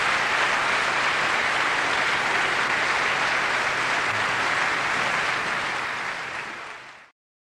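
Audience applauding steadily, fading near the end and then cutting off abruptly.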